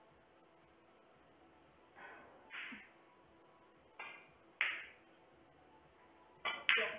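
Three pairs of sharp clacks about two seconds apart, the last pair near the end the loudest: carom billiard balls being struck. In the last pair the cue hits the cue ball and, a quarter second later, the cue ball hits an object ball.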